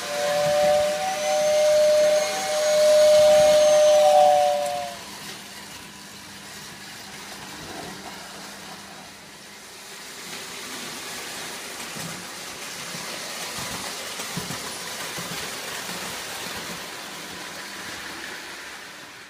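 Lionel O gauge toy train whistle blowing one steady two-note chord with a breathy hiss for about five seconds, sagging slightly in pitch as it stops. After that comes the quieter, steady running noise of toy trains rolling on tinplate three-rail track.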